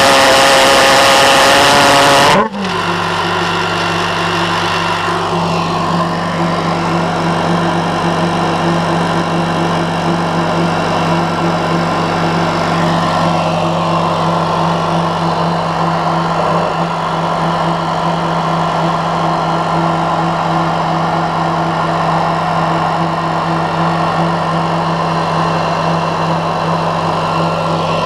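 Pulse jet engine running, a very loud, harsh buzz that cuts off abruptly about two and a half seconds in. A steady, lower-pitched engine drone follows and holds to the end.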